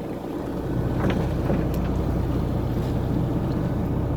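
Steady low engine rumble of a boat underway, growing a little louder under a second in, with wind on the microphone and a few faint knocks.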